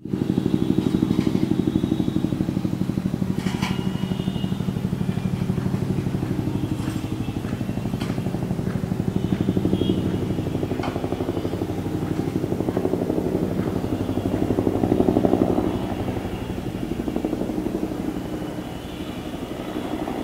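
Bell 212 helicopter flying over, its two-bladed main rotor beating in a fast, even pulse. It grows loudest about three-quarters of the way through and eases off near the end.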